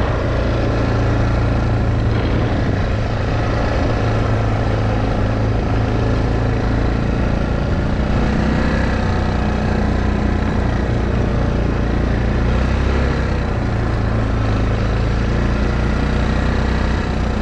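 ATV engine running steadily while riding, a constant low drone that barely changes in pitch.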